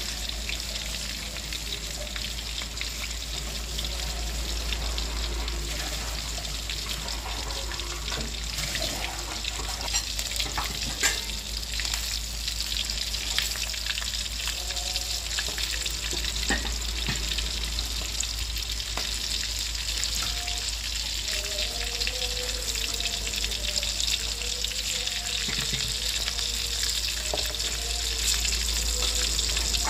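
Chunks of tuna frying in hot oil in a wok: a steady sizzle, with a few short taps and scrapes as a spatula turns the pieces.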